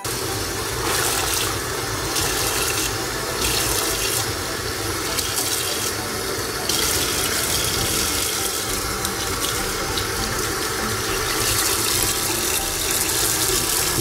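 Kitchen tap running steadily into a stainless steel sink, the water splashing over a soapy refrigerator shelf as it is rinsed.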